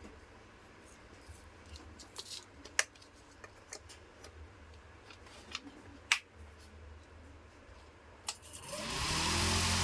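Small clicks and handling knocks, then a click a little past eight seconds and a 3-speed table fan starting up: the motor hum rises and the blade noise swells to a steady run. The fan spins again now that its start capacitor has been replaced.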